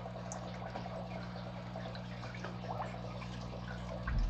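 Water trickling and dripping as green Daphnia culture water is handled with a clear plastic tube, small scattered drips over a steady low hum. A short dull bump near the end.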